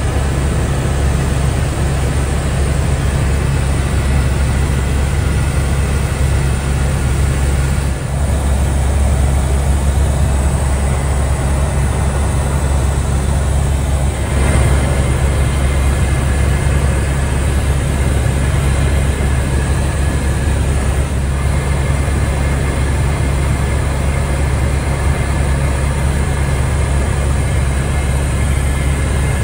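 Helicopter running in flight: a loud, steady drone with a strong low hum.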